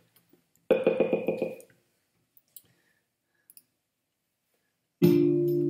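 Faint computer clicks while a song is being chosen, with a short, loud burst of sound about a second in; a guitar song starts near the end.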